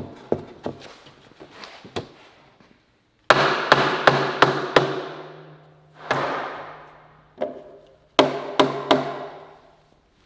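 Light wooden knocks as the parts of a pine door frame are handled. Then, about three seconds in, a short piece of percussive music starts: sharp hits that ring out over a steady low bass note, with another cluster of hits near the end.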